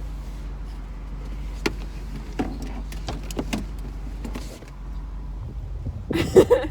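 Subaru WRX's turbocharged flat-four idling steadily, with a few sharp clicks and a louder burst of knocking and rattling near the end.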